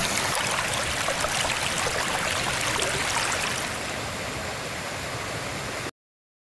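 Mountain stream flowing over rocks, a steady rushing hiss that cuts off abruptly about six seconds in.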